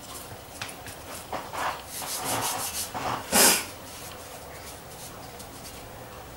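Hands rubbing and smoothing rolled fondant icing over a cake on a foil-covered board: a run of soft rubbing swishes, the loudest a brief rush about three and a half seconds in, then quieter.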